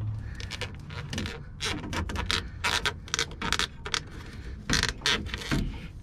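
Hands working a rubber EVAP hose onto its fitting on a charcoal canister under a Nissan Frontier: a string of short scrapes and rubs of rubber and plastic, about two a second.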